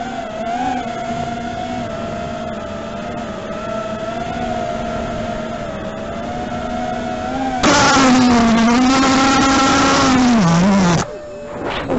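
FPV quadcopter's brushless motors whining steadily in flight, the pitch wavering slightly with throttle. About three-quarters of the way in the sound turns abruptly louder and rougher, the pitch sags, and it cuts off suddenly.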